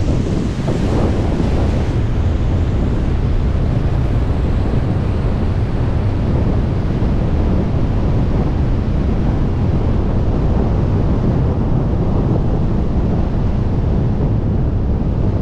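Loud, steady wind rushing and buffeting over the camera microphone from the airspeed of wingsuit flight.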